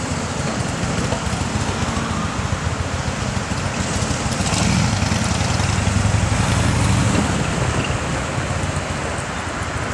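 Road traffic noise at a level crossing: a vehicle's low rumble swelling about four seconds in and easing off after about seven seconds.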